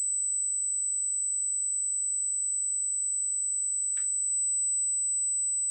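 A steady, very high-pitched electronic whine, with one faint click about four seconds in.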